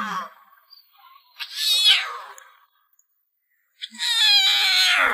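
Lion cub calling: high, mewing cries that fall in pitch, a short one about a second and a half in and a longer one from about four seconds in.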